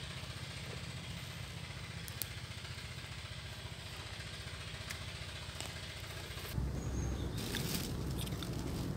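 A small engine running steadily at a low idle. About two-thirds of the way in, a louder, rougher low rumble takes over.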